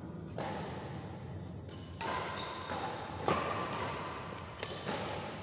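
Badminton doubles rally: sharp racket-on-shuttlecock hits roughly every second or so, the loudest a little past the middle, with footfalls on the court, in a reverberant hall.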